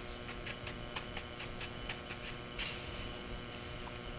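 Hot frying oil crackling in a pan, with sharp irregular pops several times a second and a brief soft rustle about two and a half seconds in.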